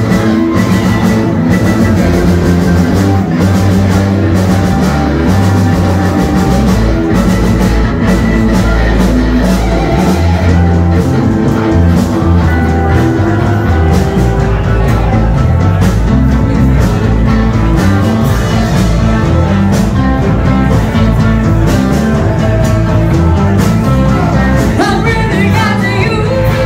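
Live rock band playing loud, with electric guitar, drum kit and singing.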